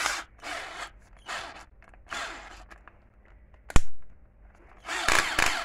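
Cordless drill-driver with its clutch set to 18, run in a few short whirring bursts. A single sharp click comes near the four-second mark, and a longer burst follows near the end.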